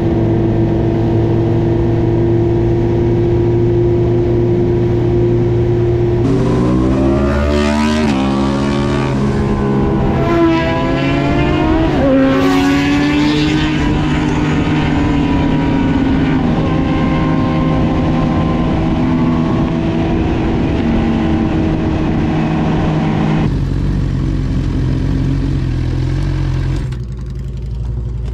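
Car engine droning steadily, then revving up hard through several rising sweeps, each cut short by a gear change, in a full-throttle acceleration about six seconds in. It settles back to a steady drone and drops lower near the end.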